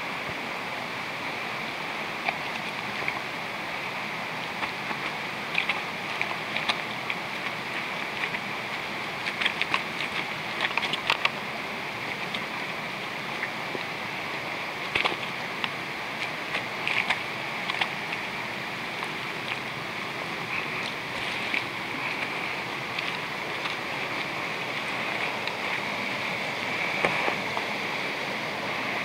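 Small mountain stream cascading over stones in a wooded gully, a steady rushing of water that grows a little louder near the end. Scattered short, sharp clicks and crackles come and go over it.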